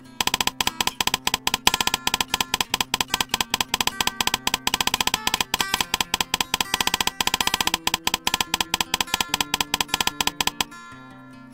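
Background music: plucked-string notes over a quick, steady percussion beat, which breaks off shortly before the end.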